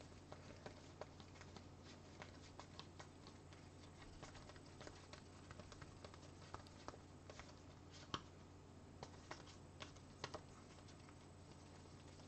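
Faint, irregular light clicks and taps of trading cards being handled and flipped through while being checked one by one, with a sharper tap about eight seconds in and another about ten seconds in.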